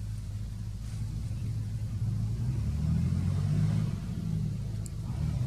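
Low engine rumble of a motor vehicle, growing louder about two seconds in and easing slightly near the end.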